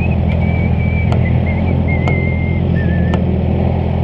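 Honda CBR650F inline-four motorcycle running at riding speed under heavy wind noise on the microphone, a steady low rumble. A thin, wavering whistle sits above it, with a few sharp clicks.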